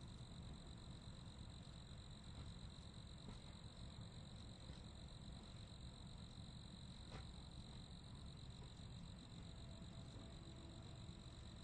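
Crickets chirping in a steady, continuous high-pitched chorus over a faint low rumble.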